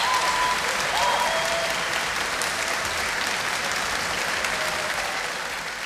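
Audience applauding, the clapping growing slowly fainter.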